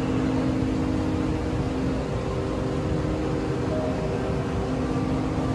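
Steady mechanical hum of a few held tones over a low rumble, changing slightly in pitch partway through.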